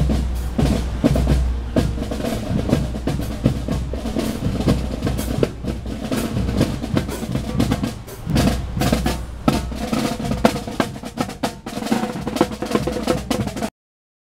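Marching band drumline playing snare and bass drums in quick, dense strokes, with a steady tone from the band sounding beneath them. The sound cuts off abruptly near the end.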